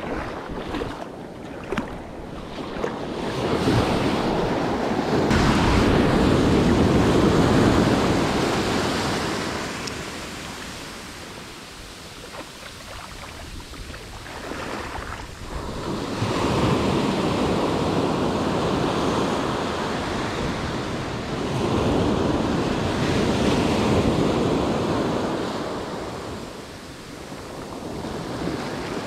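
Ocean surf breaking and washing up and back over the shore, rising and falling in three long surges a few seconds each.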